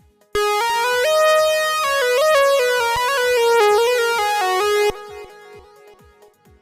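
Toxic III software synthesizer preset playing a short melody of bright, sustained lead notes that step up and down. It starts about half a second in, stops about five seconds in, and its tail fades away.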